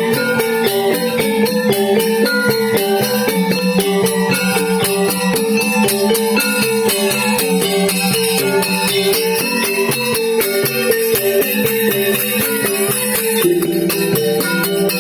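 Balinese gamelan angklung ensemble playing: bronze metallophones ring out short repeating melodic figures in a fast, steady pulse, with bright percussive strikes over them.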